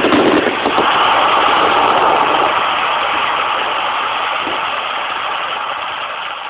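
Fireworks finale: a dense, continuous crackle and rumble of many shells bursting, with a few bangs in the first second, slowly dying away as the last stars burn out.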